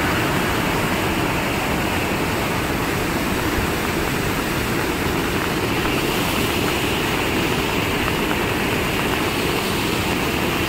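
Steady rushing of a mountain river in flood, a torrent of muddy water running high after heavy rain.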